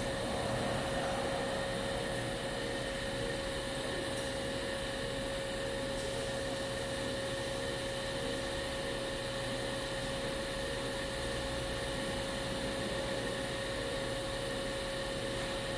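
A small electric blower running steadily, a constant whirring hum with a steady whine.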